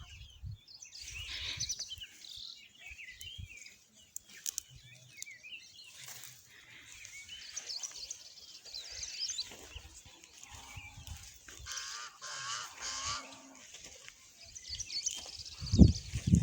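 Birds chirping and singing in short high calls. A brief loud low sound comes near the end.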